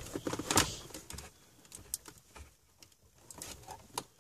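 Plastic clicks and taps as hands work at the Audi Q7's centre console trim panel, feeling for its release clips. A cluster of clicks in the first second, with the loudest about half a second in, then faint scattered ticks and one more click near the end.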